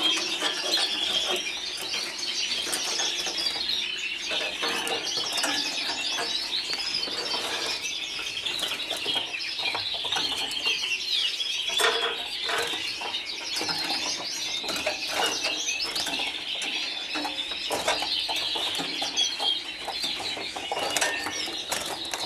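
Canaries chirping and trilling without a break, with repeated flutters of wings and light clicks from wire show cages being handled.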